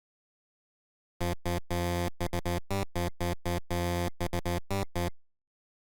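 A short synthesizer keyboard jingle of quick, choppy notes. It starts about a second in and stops about a second before the end.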